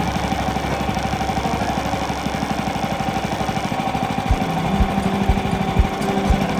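Small petrol engine running steadily with a rapid, even pulsing. From about four seconds in, irregular low thumps are heard.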